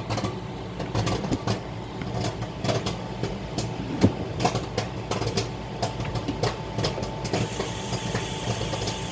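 Microwave oven running with a steady hum while a bag of popcorn pops inside, irregular sharp pops with one louder pop about four seconds in. A steady hiss starts about seven seconds in.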